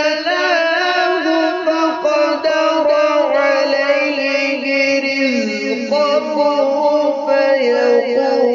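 A man reciting the Quran in the melodic style, drawing out the words in long ornamented runs with no break. His pitch wavers and slides downward about five seconds in.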